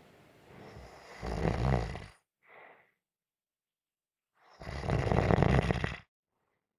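Gentle snoring: two rattling snores, each about two seconds long, each followed by a short, soft breath.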